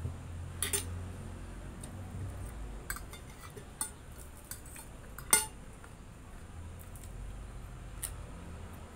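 Metal fork clinking and scraping on a plate of noodles: a handful of short, sharp clinks spread out, the loudest about five seconds in.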